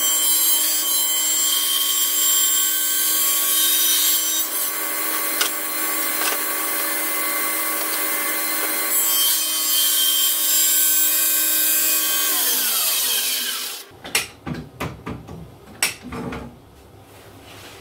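Table saw running with a steady whine and cutting through a board. About twelve seconds in it is switched off and the blade winds down, the pitch falling. A few knocks follow as the board is handled.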